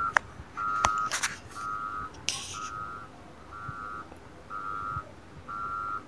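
Reversing alarm of a Caterpillar 120 motor grader beeping steadily about once a second as the grader backs up. A short hiss comes about two seconds in.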